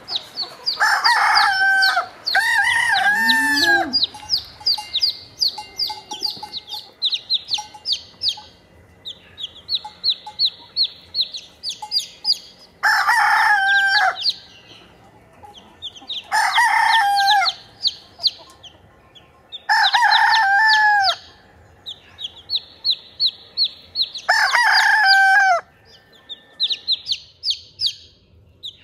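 Exchequer Leghorn rooster crowing about six times: twice in quick succession near the start, then four more spaced through the rest. Between the crows, three-day-old chicks peep steadily with rapid, high, short cheeps.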